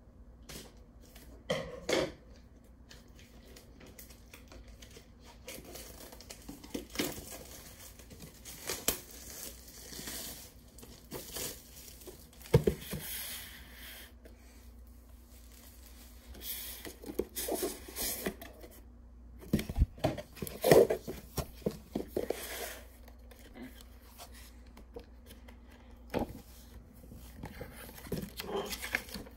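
Unboxing a cardboard Pokémon Elite Trainer Box by hand: packaging tearing and crinkling, with scattered sharp knocks as the box and lid are handled. Paper booklet pages are turned near the end.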